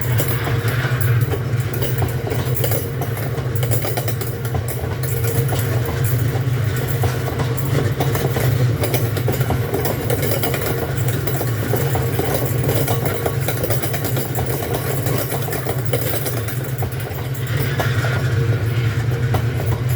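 Diesel freight train's engine running with a steady low drone, with light clicking and rattling over it.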